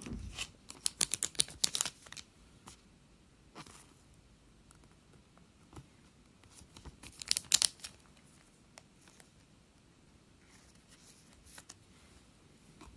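Hockey trading cards being handled and sorted by hand: crisp rustling and clicking as cards slide and are set down, in two bursts, one right at the start and one about seven seconds in, with a few single ticks between.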